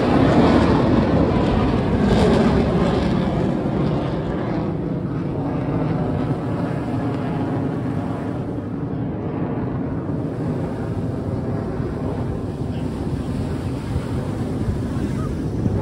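Jet roar from Blue Angels F/A-18 Super Hornets flying past, loudest at first with a falling pitch, then easing to a steady distant rumble. Wind buffets the microphone.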